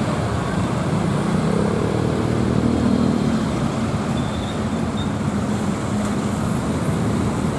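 Steady road traffic noise: vehicle engines running, with no single event standing out.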